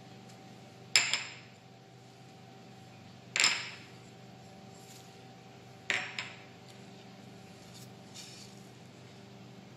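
A small dish knocking against a glass mixing bowl as ingredients are tipped in: three sharp clinks with a short ring, about two and a half seconds apart, the middle one loudest, then a few faint taps near the end. A steady low hum runs behind.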